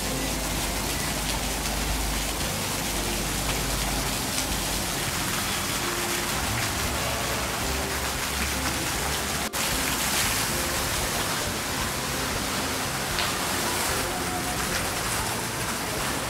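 Water from a lit decorative fountain's jets splashing back into its pool: a steady hiss of falling water.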